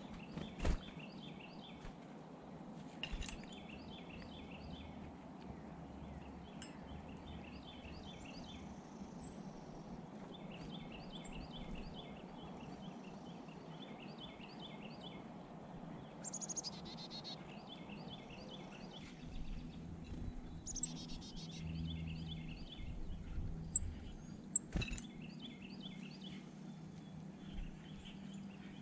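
Wild songbirds calling around a seed feeder: runs of short, quick chirps repeating over and over, with a few higher calls in between, and a few sharp knocks.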